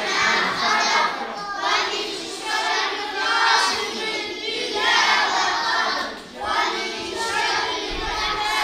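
A group of children's voices reciting together in unison, in chanted phrases broken by short pauses.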